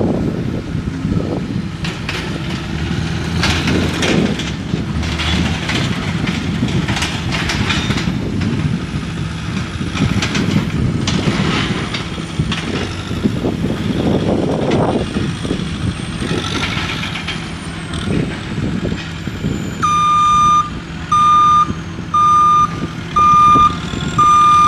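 Heavy construction machinery running, its diesel engine humming steadily, with repeated metal clanks and knocks. Near the end a backup alarm starts beeping about once a second as a machine reverses.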